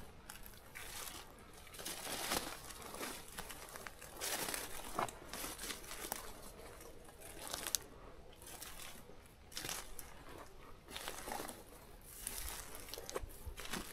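Footsteps crunching and rustling through dry leaves and brush at an uneven pace, with a deer being dragged over the leaf litter.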